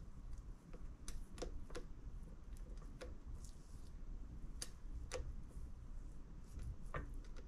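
A silicone spatula working thick cookie dough off a stand mixer's flat beater in a steel bowl, with a handful of light, irregular taps and clicks as it knocks against the beater and bowl.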